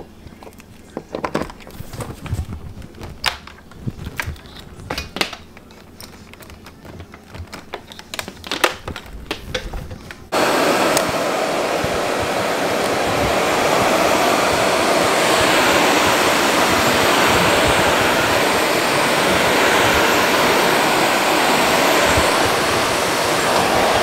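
Clicks and knocks as a plug is pushed into a wall outlet and the cord is handled. About ten seconds in, a vacuum cleaner switches on suddenly and runs with a steady, loud noise.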